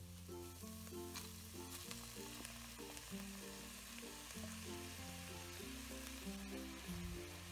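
Diced purple carrots sizzling as they fry in a pot, a steady hiss, with a light plucked-string tune playing over it.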